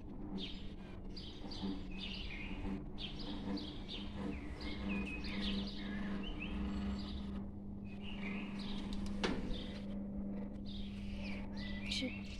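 Small birds chirping repeatedly over a steady low electric hum from the motor arms of an automatic swing gate as it closes. A single sharp click comes about nine seconds in.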